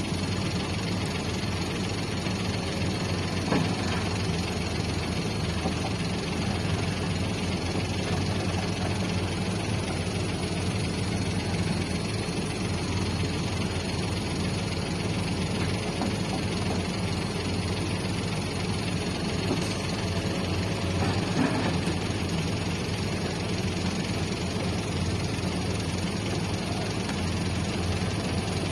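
Diesel engines of hydraulic excavators running steadily under working load, with a faint knock about three and a half seconds in and again around twenty-one seconds.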